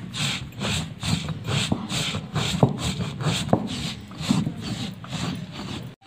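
Stone roller of an ammi (flat grinding stone) rubbed back and forth over dry-roasted spices, a rhythmic gritty scraping at about two to three strokes a second with occasional sharper clicks, as the masala is ground to a powder.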